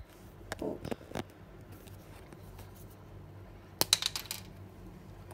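Plastic felt-tip marker pens and their caps being handled: a few light taps in the first second, then a quick cluster of sharp plastic clicks about four seconds in.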